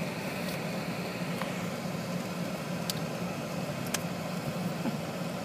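Vehicle engine running at a steady idle, heard from inside the cab, with a few light clicks.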